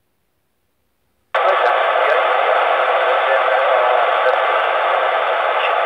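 A scanner receiving an AM airband channel on 131.575 MHz; its squelch opens suddenly about a second in, giving a steady, loud radio hiss ahead of a transmission.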